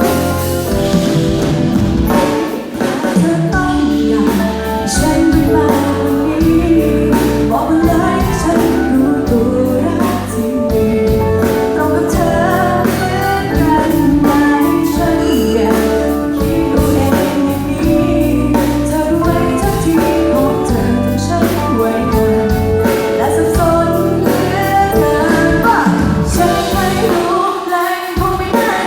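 A woman singing a Thai pop song over loud backing music with a steady drum beat.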